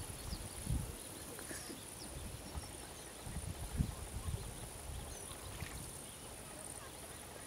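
Outdoor riverside ambience: a steady high hiss with a few faint, short bird chirps, and scattered low thuds, the strongest about three to four seconds in.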